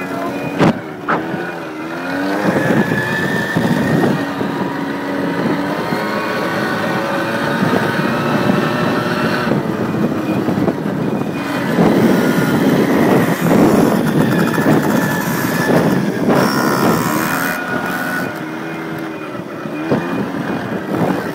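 Two-stroke single-cylinder engine of a Suzuki LT80 youth quad revving up and down while it is ridden, heard from on board.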